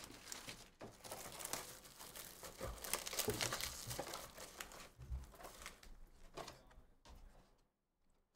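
Faint crinkling and tearing of trading-card pack wrappers being handled and opened by hand, a continuous crackle that dies away near the end.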